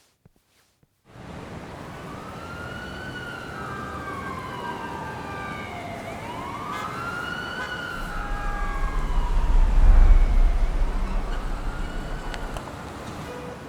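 Emergency vehicle siren wailing, slowly rising and falling, starting about a second in. A deep rumble swells under it, loudest about ten seconds in, then eases off.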